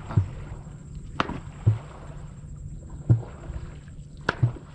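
Regular dull knocks with splashing close by, about one every second and a half, with two sharper clicks between them, over a steady outdoor hiss.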